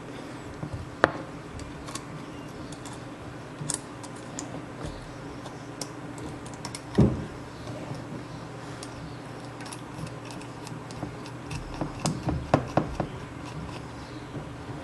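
Small metal clicks and taps as the parts of a Mickey Sharpz Hornet MkIV coil tattoo machine are handled and its spring and armature bar fitted back with an Allen key. A sharp knock comes about a second in, a heavier thump about seven seconds in, and a quick run of clicks near the end, over a faint steady hum.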